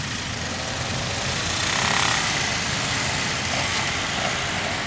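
Several motorcycle engines idling and revving as the bikes pull away one after another, with one riding off close by and louder about two seconds in.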